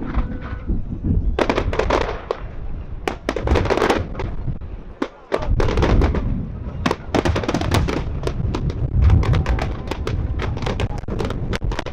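Fireworks display: aerial shells bursting with deep booms and dense crackling stars, in a steady barrage with a brief lull about five seconds in.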